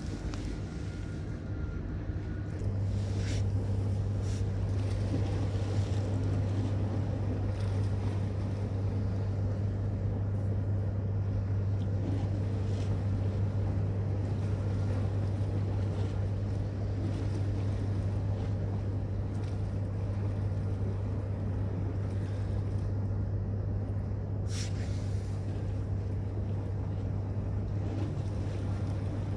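Calm sea water washing and lapping against a rock breakwater, under a steady low hum that sets in about two seconds in and stays. A couple of faint clicks.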